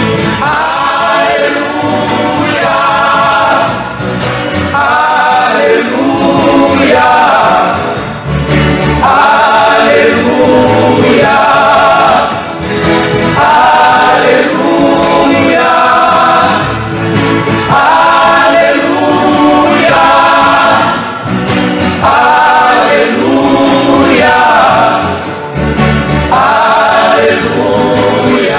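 Male choir singing a gospel hymn in phrases of about two seconds each, accompanied by acoustic guitars.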